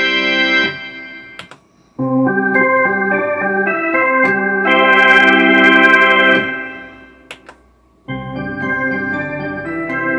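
A Roland D-50 synthesizer plays held organ chords on three different organ patches: a dirty Hammond sound, a jazz organ with reverb and a percussive organ with reverb. The first chord fades out within the first second. After a short pause, another chord is built up note by note and held, fading away around six and a half seconds in. After a second pause, a new held chord starts around eight seconds in. Faint clicks sound in the pauses.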